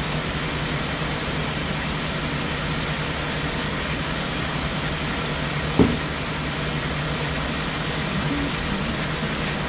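Electric fan running steadily: an even whoosh over a low motor hum, with one sharp click about six seconds in.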